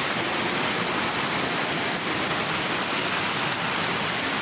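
Steady roar of the Pemali river in flood: a dense, even rush of fast, high water with churning waves.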